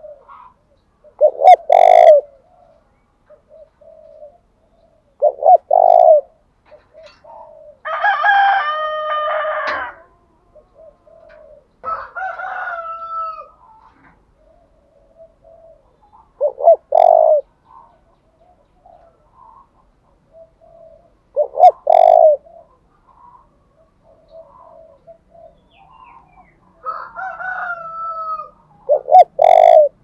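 Spotted dove cooing: five loud, low phrases of its call come every few seconds, with soft low coos between. Three times a longer, higher call with several bending tones sounds between the coos, the first about eight seconds in.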